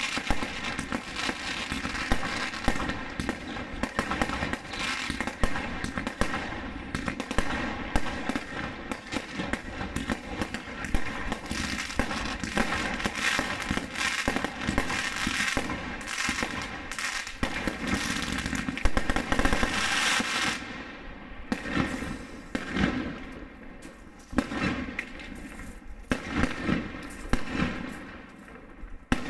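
Aerial fireworks going off in rapid succession: a dense run of bangs and crackles that thins out to separate bangs with short gaps after about twenty seconds.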